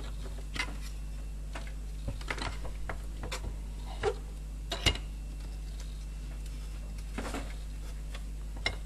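Scattered light clicks and knocks of a plastic handle and small metal piece being handled and clamped in a bench vise, the sharpest about five seconds in, over a steady low hum.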